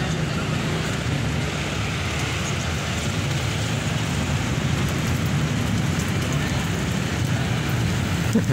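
Sempol skewers deep-frying in a wok of hot oil: a steady sizzle over a low rumble, with a brief knock near the end.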